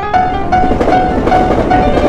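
Animated railroad crossing bell dinging steadily, a little over twice a second, over the rushing noise of a passing train.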